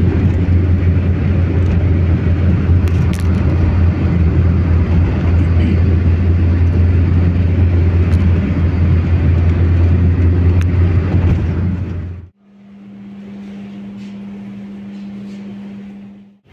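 Road and engine noise of a car driving at speed, heard from inside the vehicle: a loud, steady low rumble. About twelve seconds in it cuts off abruptly, and a quieter, steady single-pitched hum follows.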